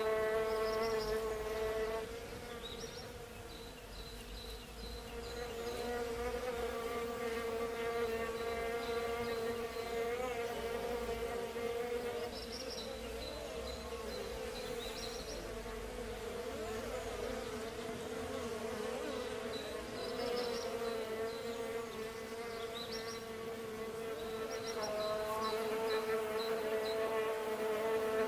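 Bees buzzing: a steady, pitched wingbeat hum that wavers slightly, drops in level a couple of seconds in and grows louder again near the end. Faint short high chirps come now and then.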